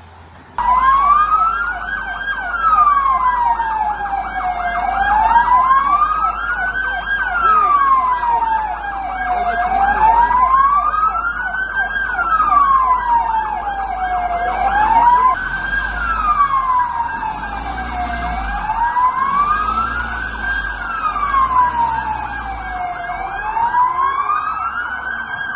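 Emergency vehicle siren wailing, rising and falling slowly about once every five seconds, with a faster warbling siren sounding in the same range. It starts abruptly about half a second in.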